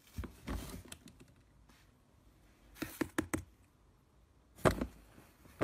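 Plastic knocking and clacking from a white swing-lid bin as a cat climbs onto it and pushes through the lid. Three short clusters of sharp clatters, the last one, just before the end, the loudest.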